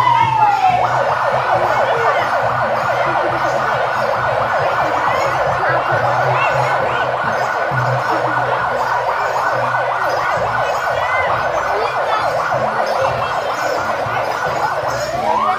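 Electronic siren: the falling end of a whoop, then a fast, even warble held for most of the time, and a new rising whoop just at the end, over a low hum.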